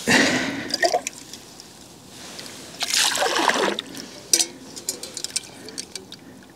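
Kettle dipped into lake water and filling: two bursts of gurgling and splashing, one at the start and one about three seconds in, with a few light clicks after.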